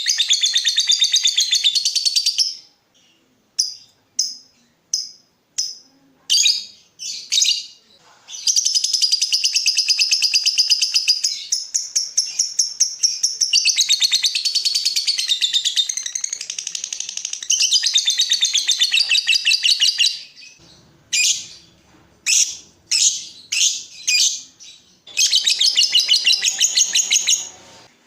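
Lovebird singing in long, fast chattering trills that run for several seconds at a time, broken by spells of short separate chirps.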